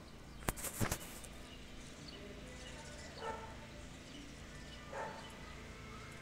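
A quick cluster of sharp clicks and knocks from handling a phone against a small telescope's eyepiece. Then a dog barks twice in the distance, once about three seconds in and again about five seconds in.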